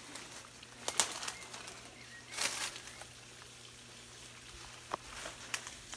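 Leaves and twigs rustling as someone pushes through dense undergrowth, with a sharp snap about a second in, a longer brushing rustle a little later and a few lighter clicks near the end.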